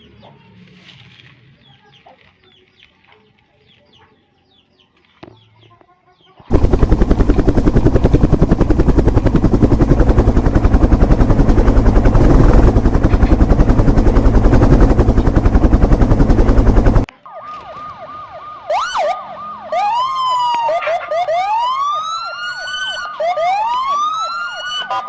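Faint scattered clicks at first. Then, about six seconds in, a very loud, rough, steady noise starts and cuts off abruptly after about ten seconds. It gives way to an electronic toy police-car siren: repeated rising and falling wails over a steady high beep.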